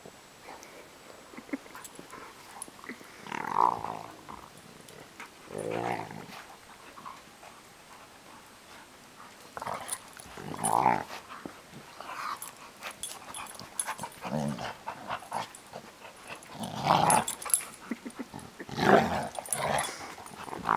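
Two dogs play-fighting, growling in several short bouts between quieter stretches.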